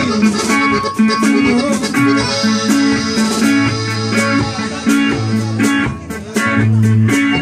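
Live norteño band playing an instrumental break in a corrido: a bajo sexto strumming over an electric bass line and a steady drum beat, with a button accordion.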